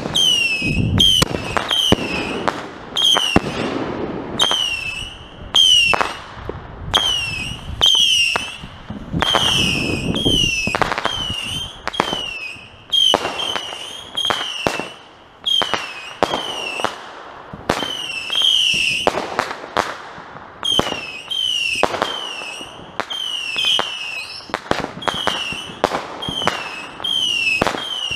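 Consumer fireworks firing shot after shot, roughly one a second. Each shot is a sharp pop followed by a short whistle that falls in pitch.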